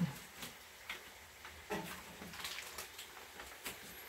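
Scattered light clicks and taps of kitchen utensils and containers being handled, about half a dozen irregular knocks.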